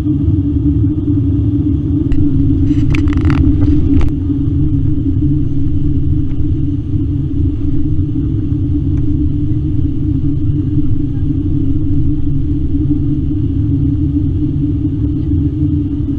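Steady low cabin rumble of an Airbus A321ceo airliner in descent, engine and airflow noise heard at the window seat, with a constant hum. A few brief small noises come about three seconds in.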